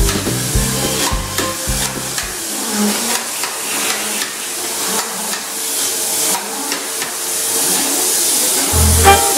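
Background music with a beat and bass line, which drops out after about two seconds and leaves a steady hiss until the beat comes back near the end.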